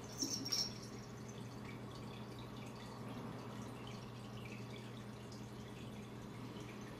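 A couple of brief, high clinks about half a second in as a black cat leaps, then only a steady low electrical hum of room tone.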